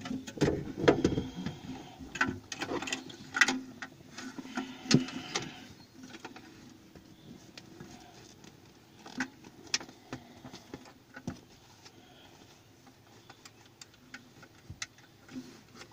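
Handling noise from an acoustic guitar being picked up and settled into place: soft knocks, taps and rubbing against the body and strings. These are busiest in the first six seconds, then thin out to scattered small clicks.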